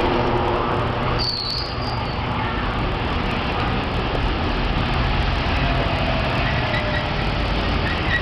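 Steady city street noise: traffic running along the road under a constant high hiss, with a brief high squeak about a second in.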